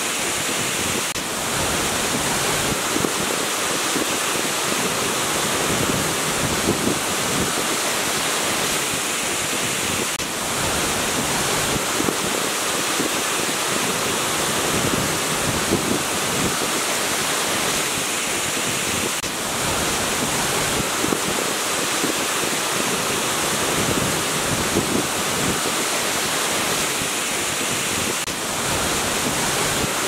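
Waterfall rushing: a steady, even noise of falling water.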